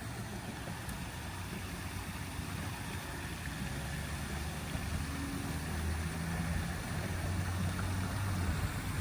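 Low, steady engine hum that grows a little louder over the last few seconds.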